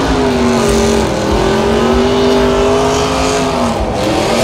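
Drag-racing pickup truck engines at full throttle during a quarter-mile pass: one steady, loud engine note that holds for most of the stretch, drops briefly near the end, then climbs again.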